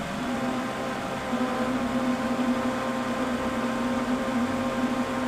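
Countertop blender motor running steadily with a humming whir, blending soaked dried peppers into a thick paste as a tamper pushes the mix down onto the blades.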